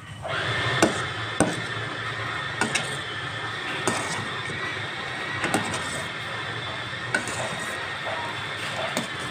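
Frothy mixture bubbling and sizzling in a frying pan while a metal spoon stirs it, with several sharp knocks of the spoon against the pan.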